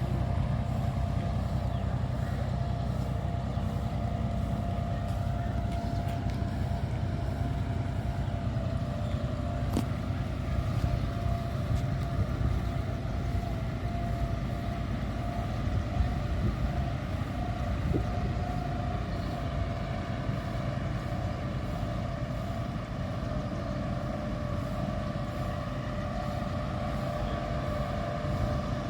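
Boat engine running steadily, a low even drone with a thin steady whine above it.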